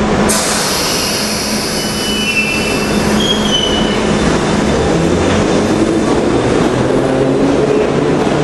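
London Underground tube train running along the platform: a steady rumble, with a sudden hiss starting just after the start that fades over the next few seconds, and brief high wheel squeals around two to three seconds in.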